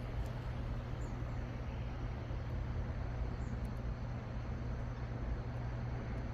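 A steady low mechanical hum, like a vehicle engine idling, over faint outdoor background noise.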